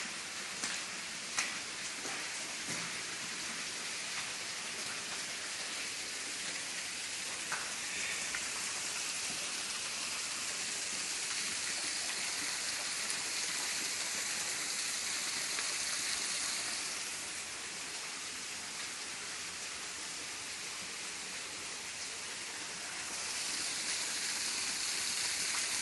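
Mine-tailings wastewater running down a small open channel: a steady hiss of flowing water, dipping slightly after the middle and louder near the end, with a few light clicks in the first few seconds.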